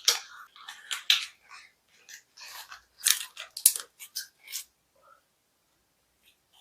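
Clay being worked with hand tools: short scraping, crunching strokes, with two sharp clicks about three seconds in.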